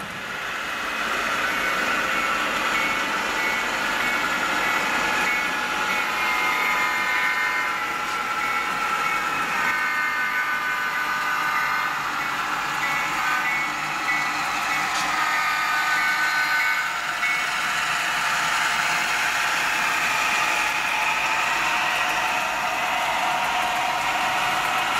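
HO-scale model diesel locomotives running on track, with a steady engine sound from the locomotives mixed with the rolling noise of wheels on rail; the engine pitch shifts upward around three quarters of the way through.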